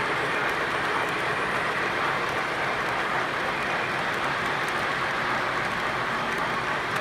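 Three-rail O-gauge model trains rolling along the track: a steady whirring rush of wheels and motors with a few faint clicks.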